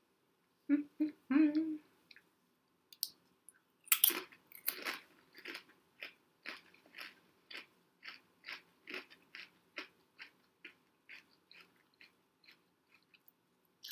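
Kettle-cooked BBQ potato chips bitten with a loud crunch about four seconds in, then chewed with crisp, even crunches about twice a second. A short hum of voice comes about a second in.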